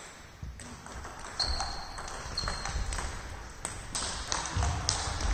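Table tennis ball clicking sharply and irregularly off bats and table, echoing in a sports hall, with two brief high squeaks in the middle.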